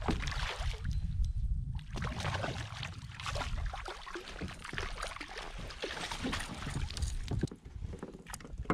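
A hooked bass splashing and thrashing at the water's surface beside a kayak as it is scooped into a landing net, with water sloshing and irregular knocks and rattles of the net and gear against the kayak.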